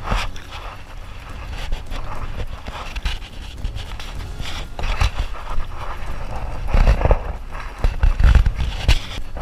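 Kayak paddle strokes: blades dipping and splashing in sea water every second or so. Heavy low rumbling thumps come from the life vest rubbing against the microphone, loudest about two-thirds of the way in.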